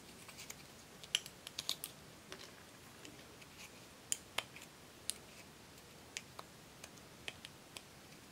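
A metal-tipped pick scraping and picking at pressed eyeshadow in its compact pan, breaking the powder up: irregular small clicks and scratches, a quick cluster about a second in and a few sharper ticks around four to five seconds in.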